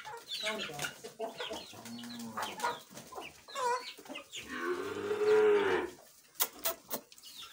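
Aseel chickens and their chicks clucking and cheeping, with short calls one after another. About halfway through comes one long rising-and-falling animal call, the loudest sound, lasting about a second and a half. A few sharp taps follow near the end.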